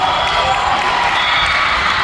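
Crowd of many voices calling and cheering at a volleyball match, with the occasional thud of a ball on a hard court floor.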